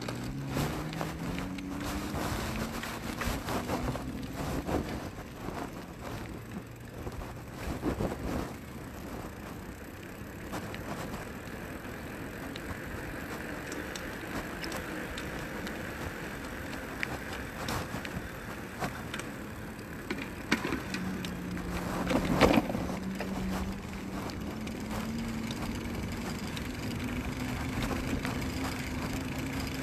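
Electric bike motor whining and rising slowly in pitch as the bike gathers speed, twice, over a steady rush of wind and tyre noise on the road. There is a single sharp knock about 22 seconds in.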